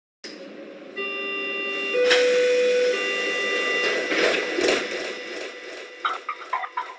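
Logo intro sound: sustained electronic chords that change about once a second, then two noisy swells, then a run of quick short pulses starting near the end.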